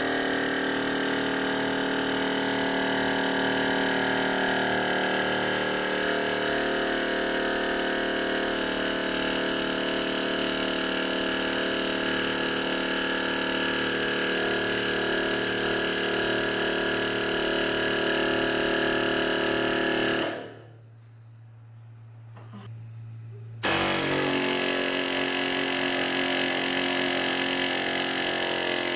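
Pneumatic air hammer (air chisel) fitted with a 3/4-inch socket, driving a copper ground rod into the ground with a steady, rapid hammering. About two-thirds of the way through it stops for about three seconds, leaving only a faint low hum, then starts again abruptly.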